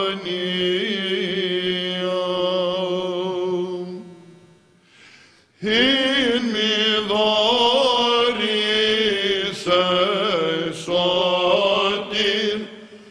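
Men chanting a Byzantine Orthodox hymn in Greek, a moving melody sung over a steady held drone (the ison). The chant fades about four seconds in, pauses for a second and a half, then starts again.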